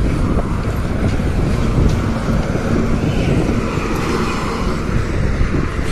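A moving bus: steady engine and road rumble.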